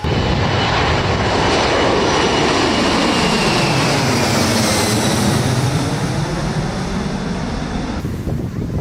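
Airplane passing overhead: a loud steady rush with a faint whine that falls slowly in pitch as it goes by.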